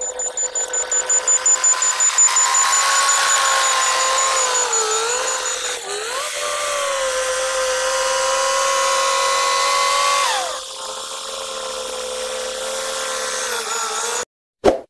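Cat D6R2 bulldozer working under load: a steady, high mechanical whine over engine and track noise. Its pitch dips about five seconds in and slides down at about ten and a half seconds, as the load eases. A sharp thump comes near the end.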